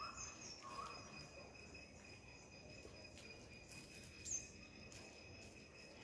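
Insects droning steadily at a high pitch. Two short chirps come near the start, and a brief high call comes about four seconds in.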